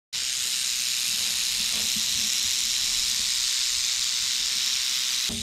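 Timber rattlesnake shaking its tail rattle: a steady, high, dry buzz, the rattle vibrating about 90 times a second. It starts abruptly and breaks off near the end.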